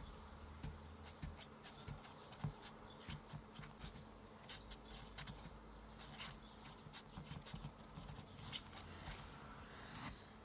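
Faint, irregular light clicks and ticks, several a second, over a low steady hum.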